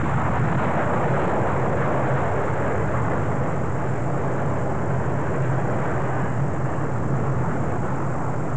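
Steady rushing roar of a fire sound effect, even in loudness, over a constant low drone.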